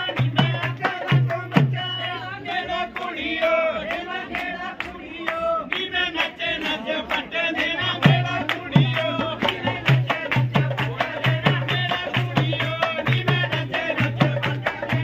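Punjabi wedding folk song: singing over a steady drum beat. The drum drops out about two seconds in and comes back about eight seconds in.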